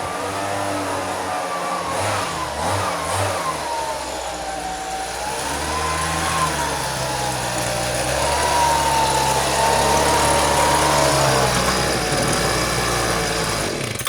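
Leaf blower engine running, its pitch rising and falling as the throttle changes, while blowing snow off a car; it shuts off abruptly at the end.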